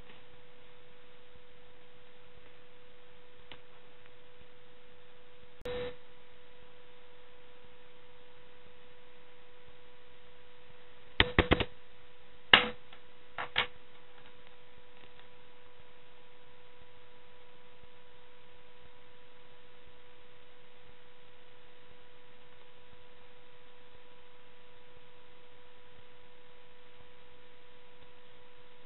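A steady hum at one pitch throughout, broken by a handful of sharp clicks: one about six seconds in, a quick run of three around eleven seconds, then two more over the next two seconds.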